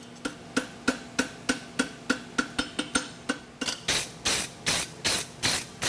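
Steel horseshoe being scrubbed back and forth with a hand tool in quick, even strokes, about three a second. Each stroke is a short scrape with a faint ring from the shoe. About three and a half seconds in, the strokes become longer and louder.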